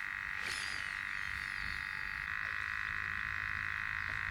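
A steady chorus of frogs calling, a dense unbroken trilling, with a second, slightly lower-pitched layer joining a little past halfway.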